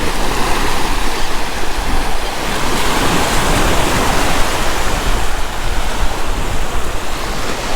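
Surf washing onto a sandy beach, with strong wind buffeting the microphone in a steady low rumble.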